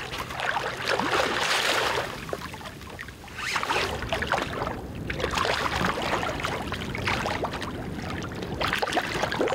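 Choppy river water splashing and slapping, coming in surges, as a hooked fish thrashes and rolls at the surface close to the boat.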